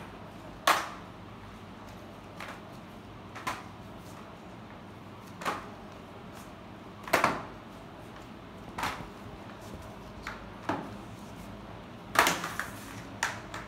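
Sharp clacks and knocks at irregular intervals, about one every second or two, from a child pushing a flat mop across a tiled floor in flip-flops, with a cluster of clacks near the end.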